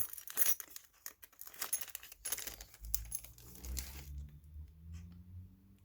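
Coins being handled: a string of small clicks and clinks with some crinkling, mostly in the first four seconds.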